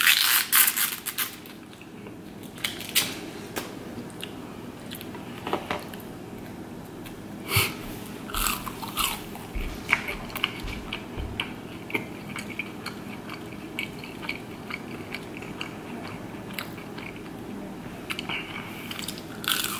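Close-miked chewing and biting of McDonald's chicken nuggets, with scattered wet mouth clicks and smacks. There is a quick run of clicks and rustling in the first second, and a steady low hum underneath.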